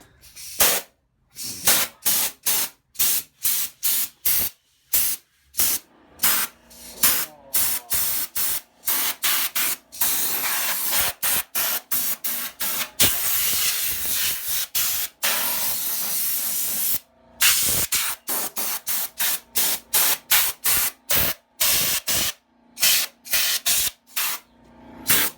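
Compressed air from an air-compressor blow nozzle hissing in many short, rapid blasts, with one long blast of about seven seconds midway, as it blows packed sawdust out of a desktop computer.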